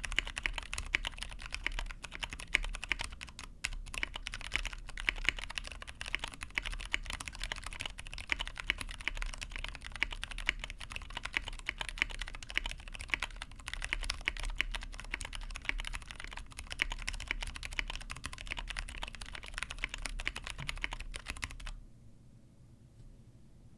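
Fast continuous typing on a Tofu65 mechanical keyboard with lubed Cherry Clear tactile switches, 65 g springs, an aluminum plate and ePBT keycaps. The keystrokes stop suddenly about two seconds before the end.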